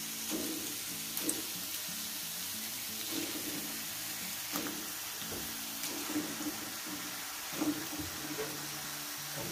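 Rendang spice paste frying in a wok, a steady sizzle, with a few short knocks as raw chicken pieces are dropped in.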